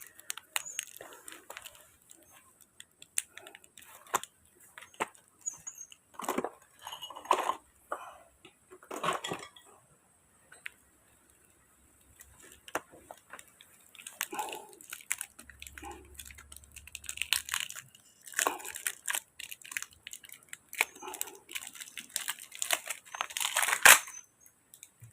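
Irregular clicks, scrapes and rustles of hand work on small metal and plastic parts, as a new spring is fitted into a grass cutter's pull starter.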